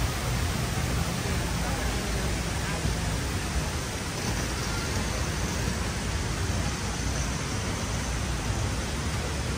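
Steady, even rushing noise with no distinct events, with a low rumble that is stronger in the first couple of seconds.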